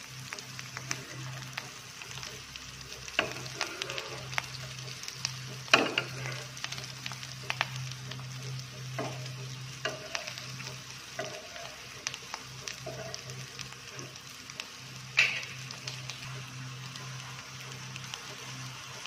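Potato cutlets shallow-frying in a little oil on a non-stick tawa: a steady sizzle full of small crackling pops, with two sharper clicks about six and fifteen seconds in. A steady low hum runs underneath.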